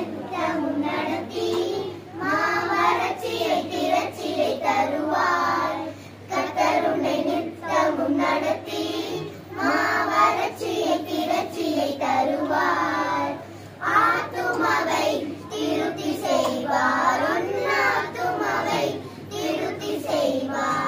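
A group of children singing together in unison, in phrases with brief pauses between them.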